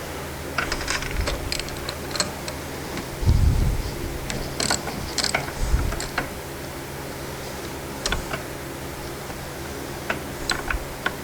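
Socket ratchet clicking in irregular runs while a snowmobile spark plug is loosened, with a couple of dull knocks of the tool against the engine.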